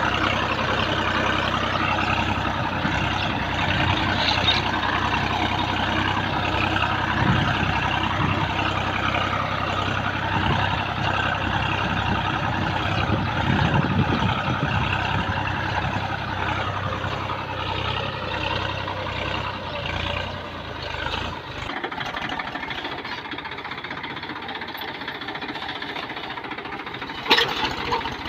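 Massey Ferguson tractor's diesel engine running steadily. The deep part of the sound drops away about three-quarters of the way through, and there is a sharp click near the end.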